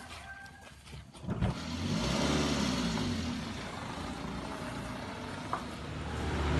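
A sharp knock about a second in, then a car engine running and revving up and down as the car drives off, growing louder near the end.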